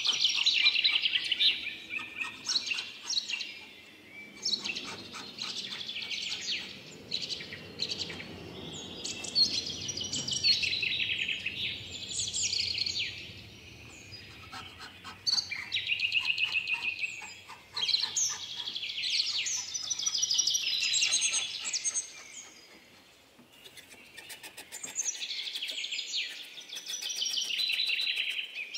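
A small hammer tapping rapidly on a chasing punch, engraving thin copper sheet. It makes high-pitched metallic ticks in bursts of a second or two, with short pauses between them.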